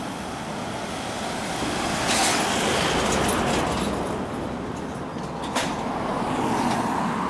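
Road traffic passing along a main road: cars and vans going by, the noise swelling about two seconds in and again near the end, with one short sharp tick in between.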